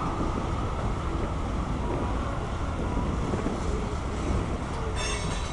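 Freight cars of a mixed freight train rolling past: a steady rumble of wheels on the rails, with a brief high squeal near the end.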